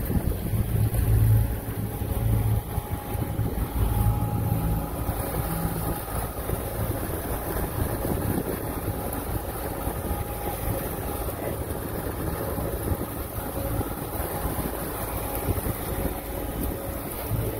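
Suzuki 150 outboard motor running as the boat moves through chop, with water rushing and wind on the microphone. The low engine rumble is strongest in the first few seconds, then evens out under the water and wind noise.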